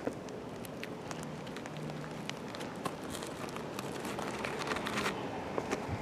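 Light footsteps and scuffs on an asphalt-shingle roof, as scattered soft ticks and scrapes over a steady outdoor background hiss.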